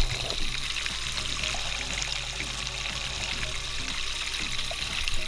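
HEIDON Three-One Motor benchtop stirrer spinning its stainless shaft in a glass beaker of water: the water churns and swirls steadily against the glass, with the stirrer's motor running underneath.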